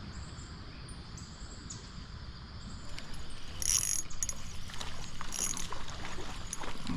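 Spinning fishing reel being cranked, its gears clicking, as a hooked brown trout is reeled in; the clicking gets louder about three seconds in.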